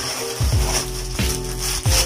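Background music with a steady beat, with the crinkle and rustle of plastic parcel mailers and clear plastic garment bags being torn open and handled.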